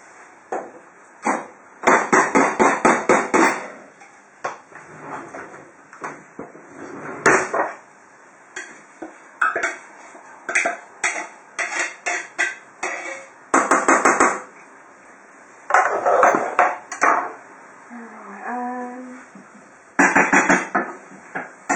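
Metal utensil knocking and scraping against a cooking pan in quick runs of sharp strikes, as food in the pan is stirred and turned.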